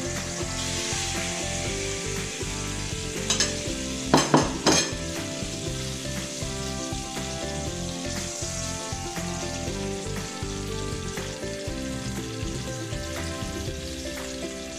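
Beef steaks searing in hot oil in a stainless steel pan: a steady sizzle, as the meat's surface is sealed to keep it juicy. A few sharp clinks, the loudest sounds, come about three to five seconds in.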